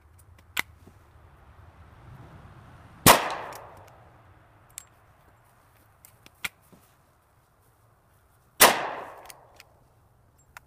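Two gunshots about five and a half seconds apart from a Chiappa M6 X-Caliber survival rifle, firing .45 ACP through a conversion sleeve in its 12-gauge barrel. Each shot has a short echoing tail, and a few lighter sharp clicks come before and between them.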